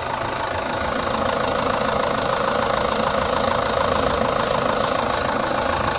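Mitsubishi Canter 110 PS four-cylinder diesel engine idling steadily with a rapid diesel clatter. Its inline injection pump has just been tuned, with the setting left at the original so that it runs smooth rather than harsh.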